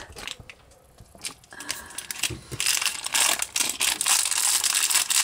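Crinkling of a small clear plastic bag of LEGO pieces being pulled open. It starts about halfway in, after a few light clicks, and continues to the end.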